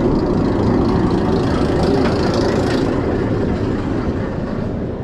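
Bolliger & Mabillard wing coaster train being hauled up its chain lift hill: a steady, dense rattle of the lift chain and track, easing off slightly about four seconds in as the train reaches the crest.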